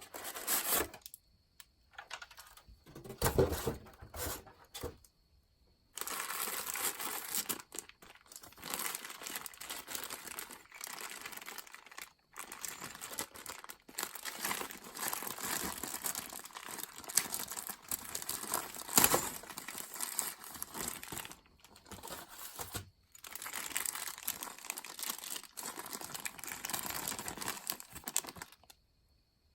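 Packaging being unwrapped: irregular crinkling and rustling with some tearing, and a louder knock about three to four seconds in.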